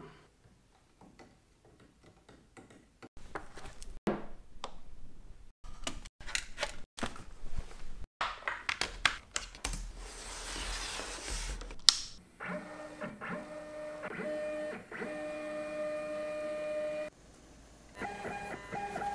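Scattered clicks and knocks of hardware being handled for the first half, then the ShopBot Handibot portable CNC's stepper motors whining in steady pitched tones that step up and down as its axes move. The motors pause near the end and start again at the beginning of an air cut, with the bit clear of the wood.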